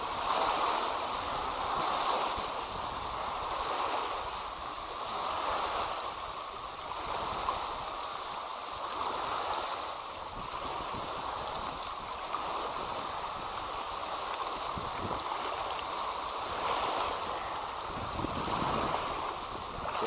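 Small wind-driven waves washing against a rocky riverbank, swelling and fading every few seconds, with wind gusting on the microphone.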